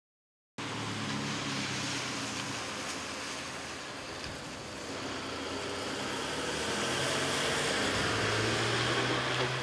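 Road traffic ambience: a steady rush of traffic noise with a low engine hum, starting suddenly about half a second in and swelling slightly toward the end.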